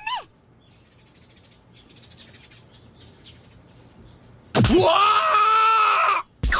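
A girl's short high voice at the very start, then faint bird chirps, then from about two thirds of the way in a young man's loud, drawn-out wake-up yawn lasting under two seconds.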